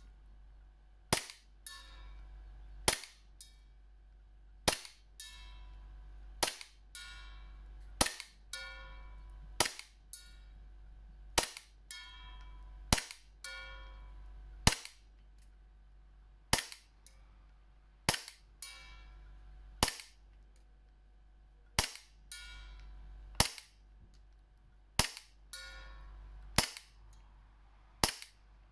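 Inokatsu Glock 17 Gen3 CO2 gas-blowback airsoft pistol fired at a slow, steady pace, about one sharp shot every second and a half to two seconds. Most shots are followed a moment later by the ringing clang of the BB striking a metal frying-pan target.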